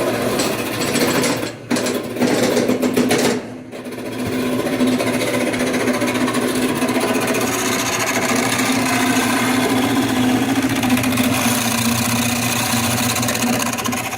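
Woodworking machine running steadily with a hum and a fast, dense rattling chatter. The sound drops out briefly twice in the first few seconds, then carries on evenly.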